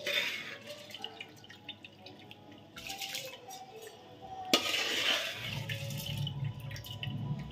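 Metal slotted ladle stirring basmati rice through coconut milk in an aluminium pot, the liquid sloshing, with a sharp knock of the ladle against the pot about four and a half seconds in. A low hum comes in for the last two seconds.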